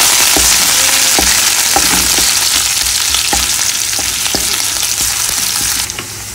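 Sliced red onion and minced garlic sizzling in hot oil in a nonstick pan, with a steady hiss, while a wooden spatula stirs and knocks against the pan every second or so. The sizzle falls away sharply near the end.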